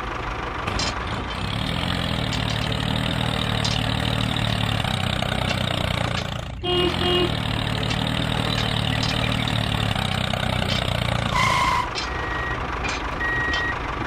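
A vehicle engine running steadily, cutting out for a moment about six and a half seconds in. Near the end come several short high beeps about a second apart.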